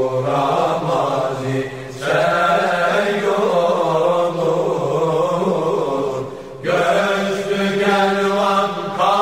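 Unaccompanied singing of a Turkish ilahi, a Sufi hymn: a slow, melismatic vocal line over a low steady held tone, with no instruments. The voices break off briefly about two seconds in and again about six and a half seconds in, then carry on.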